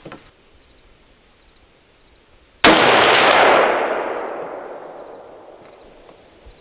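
A single rifle shot about two and a half seconds in, followed by a long rolling echo that fades away over about three seconds. It is a check shot fired while sighting in the scope.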